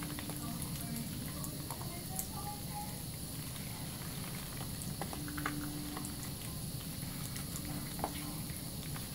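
A thin stream of tap water running steadily into a sink, with wet squishing and scattered small clicks from soapy hands rubbing a lathered bar of soap.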